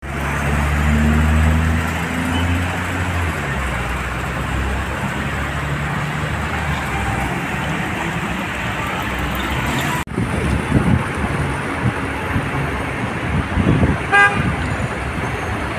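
Traffic on a flooded street: a truck engine running at first, then a steady wash of vehicle noise and tyres through standing water. After a cut about ten seconds in come gusts of wind on the microphone, and a short car horn toot sounds near the end.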